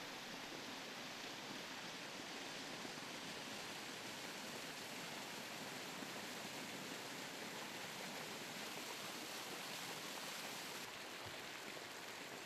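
Steady rushing of spring water cascading over mossy rocks into a stream, an even hiss without breaks; its tone shifts slightly about eleven seconds in.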